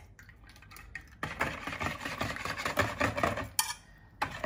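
Stainless wire whisk beating a liquid mix of eggs, cooking cream and melted butter in a plastic mixing bowl: quick rattling strokes of the wires against the bowl. They start about a second in and pause briefly near the end.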